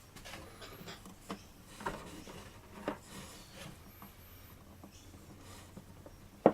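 Light handling of an acoustic guitar's wooden body: scattered soft rubs and small taps, then one sharp knock at the very end.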